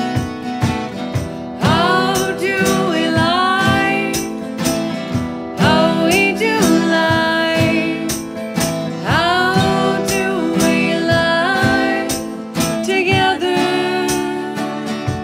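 Acoustic folk duo performing live: two acoustic guitars strummed steadily while women's voices sing long, gliding phrases over them.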